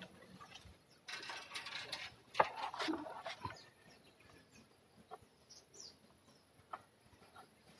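Leaves and branches rustling, with one sharp knock about two and a half seconds in, as a bamboo picking pole is worked in a rambutan tree's canopy; a few faint clicks follow.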